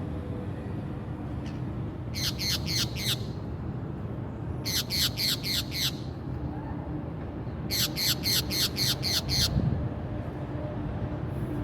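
Green parakeet squawking in quick runs: three bursts of about four, six and eight shrill, harsh calls in rapid succession, a second or two apart, over a low steady background hum.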